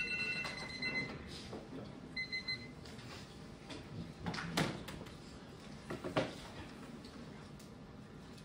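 Electronic timer beeping, sounding twice, the signal that crossfire time has run out. A couple of sharp knocks follow, about four and a half and six seconds in.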